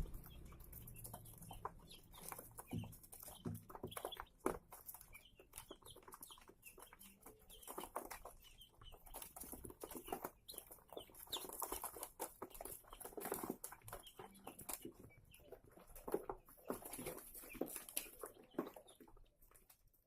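Day-old chicks peeping, many short high chirps scattered throughout, mixed with frequent small clicks and taps.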